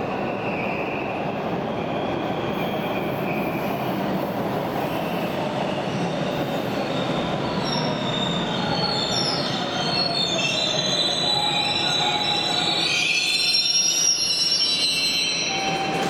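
Bombardier T1 subway train pulling into the station with a steady rolling rumble. About halfway through, high-pitched squealing from its braking wheels sets in. The squeal grows loudest near the end and cuts off as the train stops.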